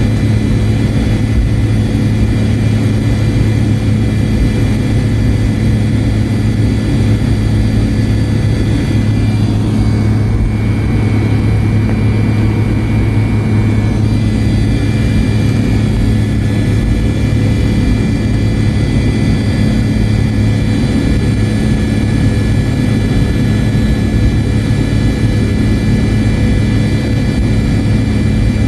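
The left rear-mounted turbofan of a McDonnell Douglas MD-88 (a Pratt & Whitney JT8D-200 series) running at taxi power, heard from a cabin seat beside it: a steady low drone with several constant whining tones over it. The jet is taxiing on this single engine.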